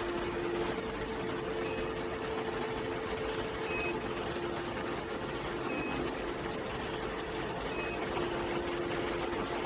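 Steady machinery hum over a constant noise, with a short high beep repeating about every two seconds.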